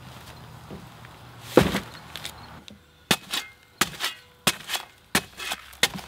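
A heavy sack of concrete mix lands in a plastic wheelbarrow with one loud thud. About three seconds in, a shovel blade starts chopping down into the paper sack to split it open: a run of sharp chops, about two a second.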